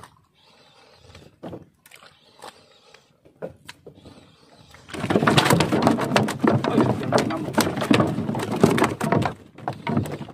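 Fishing reel clicking rapidly and loudly for about five seconds, starting about halfway through, while a hooked fish is fought on a bent jigging rod. Before that there are only scattered faint clicks and taps.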